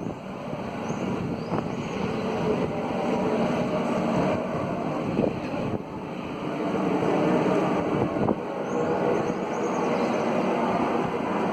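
A loud, steady rushing industrial noise, which residents attribute to the Landulpho Alves oil refinery.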